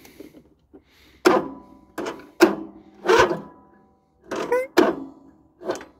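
Riding mower's Briggs & Stratton V-twin engine being cranked by its electric starter, turning over very slowly in about seven uneven, ringing pulses without catching. It is struggling to turn over, which the owner puts down most likely to a failing starter, or else to valves needing adjustment.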